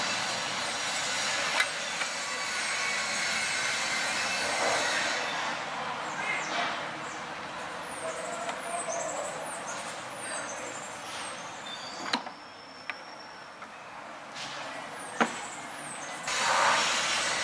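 Steady background hiss with a few sharp clicks and knocks from plastic side covers being unscrewed and lifted off a motorcycle; the hiss grows louder near the end.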